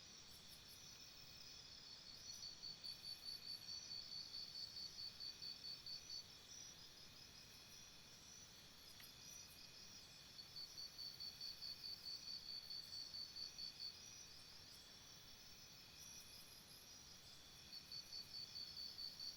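Faint insect chorus, crickets by their sound: a steady high trilling with a louder pulsing chirp, about five chirps a second, that comes in three bouts of a few seconds each.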